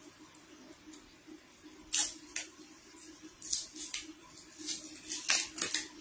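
Short, sharp clicks and crinkles of a small bottle and its cap being handled and twisted in the hands, in irregular bursts from about two seconds in, the loudest cluster near the end.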